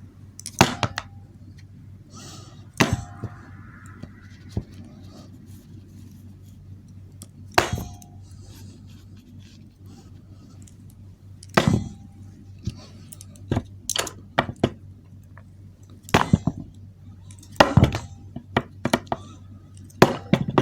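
A hard plastic air-conditioner remote being thrown and whacked against things again and again: a dozen or so sharp clacks and knocks at irregular intervals, some with a brief ringing clink.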